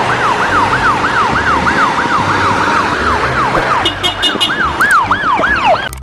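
Ambulance siren wailing in a fast yelp, its pitch rising and falling about three times a second over street noise. Around two-thirds through a short run of high beeps joins in, and near the end the sweeps slow and dip lower.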